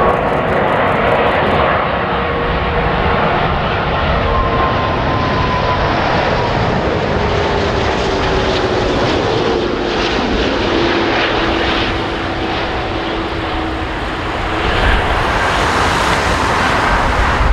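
Airbus A340-600 on final approach, its four Rolls-Royce Trent 500 turbofans giving a steady loud roar with whining tones that slowly fall in pitch. The sound swells slightly near the end as the airliner nears touchdown.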